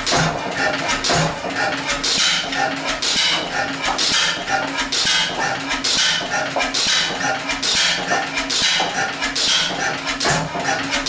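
1911 Deutz E3 stationary gas engine running, its beat coming in a steady rhythm about once a second.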